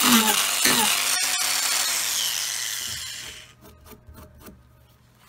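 Small angle grinder with a King Arthur's Tools 50 mm eight-tooth mini chainsaw disc biting into a wooden block, then switched off; its whine falls in pitch as it spins down about two seconds in. Near the end a few faint ticks and rubbing as a hand brushes the wood shavings off the carved surface.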